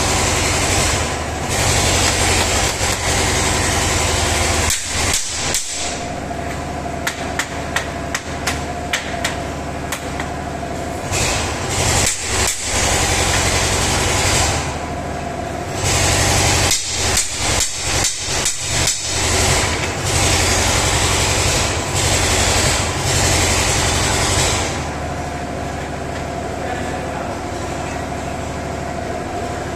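Rapid, repeated knocking like hammering, in runs about 5 to 10 seconds and 16 to 20 seconds in, over a steady machine hum.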